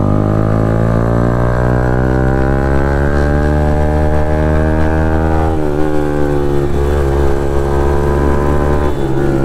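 Motorcycle engine running under way. Its note climbs slowly in pitch, drops suddenly about halfway through as the revs fall, then holds steady, with another brief dip near the end.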